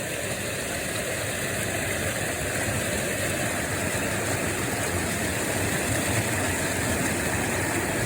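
Rushing river water and waterfall cascades, a steady rush that grows gradually louder.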